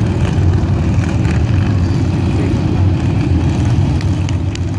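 A group of motorcycles running together at low speed in formation, giving a steady low engine sound.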